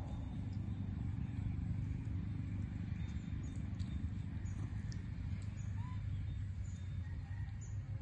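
Outdoor ambience: a steady low rumble with a few faint, short high chirps over it.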